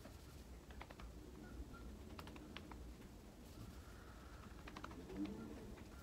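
Faint, scattered light clicks and taps of small objects being handled, over a low steady hum.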